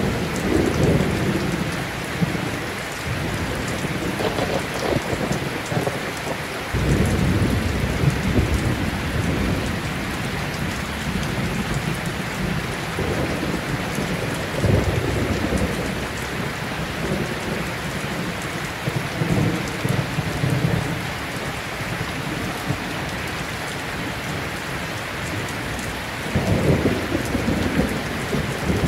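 Steady rain with low rumbles of thunder swelling up several times.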